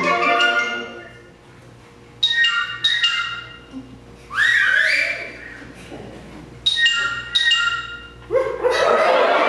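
Concert band playing a novelty piece: a held chord dies away, then come two short clipped chords. About four and a half seconds in there is an imitation dog bark with bending pitch, then two more short chords, and near the end the full band comes in loudly.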